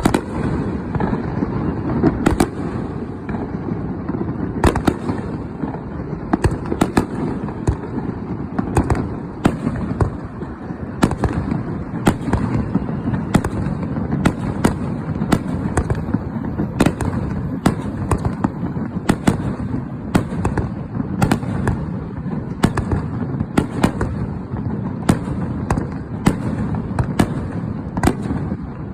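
Aerial fireworks bursting in quick succession: a dense, irregular string of sharp bangs and cracks, several a second at times, over a steady low rumble.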